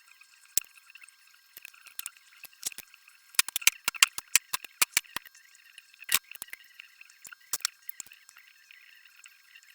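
Hand tools clicking and clinking against metal engine parts: irregular sharp clicks, a quick cluster of them about three and a half seconds in, then a few single knocks later.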